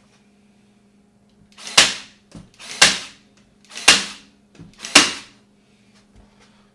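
Staple gun firing four staples about a second apart, driving them through the stretched fabric into the wooden frame of a sound panel; each shot is a sharp snap with a small click just before it.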